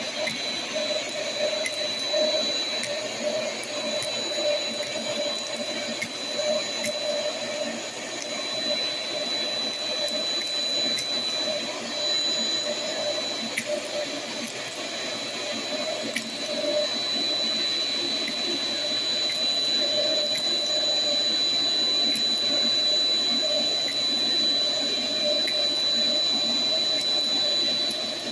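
Shop vac running with a crevice tool, a steady rushing suction with a constant high whine, and scattered sharp clicks and rattles as aluminium soda can tabs and beads are sucked up the hose.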